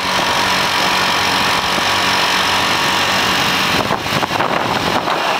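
Small motor scooter engines running at cruising speed, with a steady rush of wind over the microphone.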